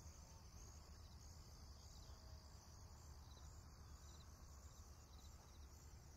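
Near silence: faint crickets chirping in a steady, repeating pattern over a low hum.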